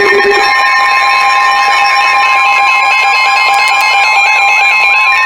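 Emergency alert tone: a loud, steady electronic alarm of several held tones sounding together. A lower tone drops out about half a second in.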